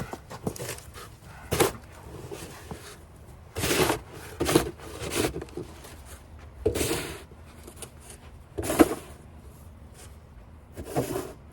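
Snow shovel scraping and pushing through snow in short, separate strokes, about seven of them at uneven intervals.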